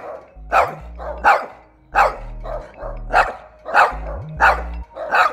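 French bulldog barking repeatedly in short, sharp barks, about one or two a second, over background music with a low bass line.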